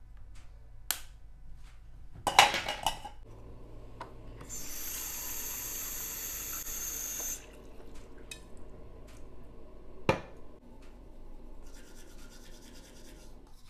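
A bathroom tap runs into a drinking glass for about three seconds in the middle, filling it. Around it come small knocks and clatter of things handled at a basin. The loudest is a cluster of knocks a couple of seconds in, with a single sharp knock about ten seconds in and a soft scrubbing near the end.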